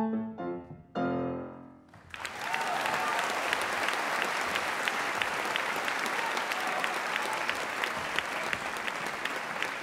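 Grand piano playing the aria's closing chords. The last chord is struck about a second in and dies away. About two seconds in, an audience breaks into steady applause that runs on.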